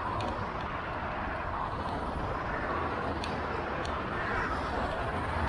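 Steady city street traffic noise, with a few faint clicks.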